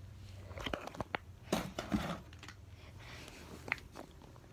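Handling noises from plastic toys: several sharp clicks and short rustling scrapes about one to two seconds in, and another click near the end.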